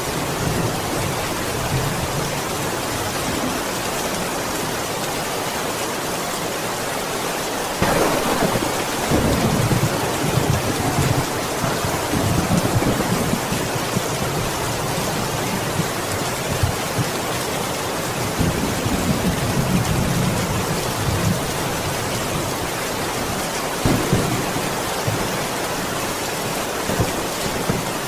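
Steady rain falling hard, with thunder: a sharp crack about eight seconds in, then long rolling rumbles, and another clap near the end.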